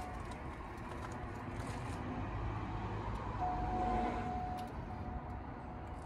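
Electric drive motor of a remote-controlled swivel passenger seat running, turning the seat outward toward the door opening. A steady low hum, with a thin whine joining for about a second midway.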